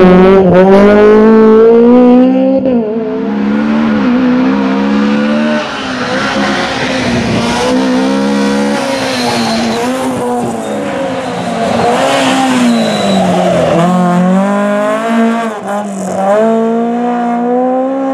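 Rally car engine revving hard, its pitch repeatedly climbing through the gears and dropping off again, with tyres squealing as the car slides through the corners. It is loudest in the first couple of seconds.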